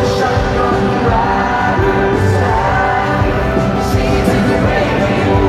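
Live country-rock band music played loudly through a concert sound system, with a voice singing over it.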